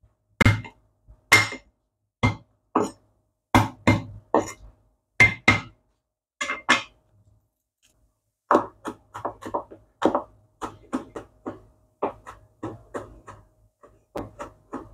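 Chinese cleaver chopping garlic on a bamboo cutting board. First come single hard knocks of the blade on the board, one or two a second. After a short pause about halfway, quicker and lighter chopping follows, about three to four strokes a second, as the garlic is minced fine.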